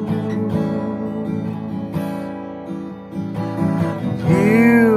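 Acoustic guitar strummed between sung lines, chords ringing on, with a loud note that rises and falls in pitch near the end.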